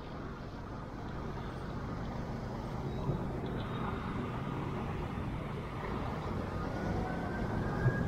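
Downtown street traffic: cars passing steadily on a multi-lane city street, growing gradually louder, with a faint rising vehicle whine near the end.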